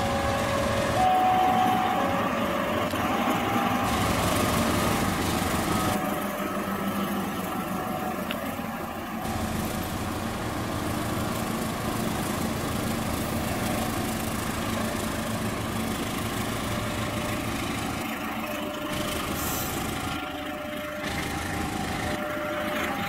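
A KAI CC206 diesel-electric locomotive's engine running steadily as it passes, with train wheels rolling over the track. An alternating two-note tone sounds near the start and again near the end.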